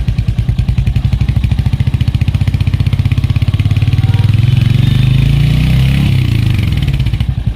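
Royal Enfield Hunter 350's single-cylinder engine and exhaust at a standstill, idling with an even thump, then slowly revved. The revs climb from about a second and a half in, hold near the top around the middle, and drop back to idle near the end.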